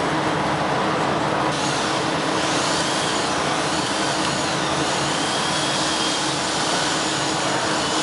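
Woodworking machining centre's motors and dust extraction running: a loud, even drone with a steady low hum, and a faint wavering high whine from about two seconds in.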